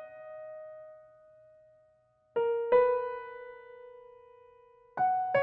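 Slow, sparse piano background music: two notes struck in quick succession about every two and a half seconds, each pair left to ring and fade.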